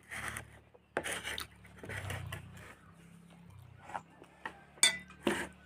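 Metal spoon scraping and clinking on a metal plate while eating, with a few sharp clinks; the one about five seconds in rings briefly.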